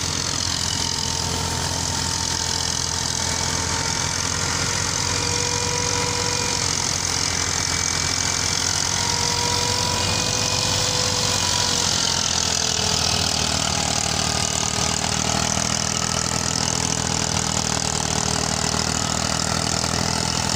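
Massey Ferguson 240 tractor's three-cylinder diesel running steadily under load, driving a wheat thresher, with a steady whine from the spinning threshing machinery over the engine.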